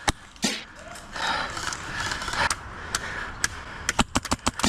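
Airsoft gun shots: two sharp cracks at the start, a stretch of rustling, then a quick run of about six shots near the end.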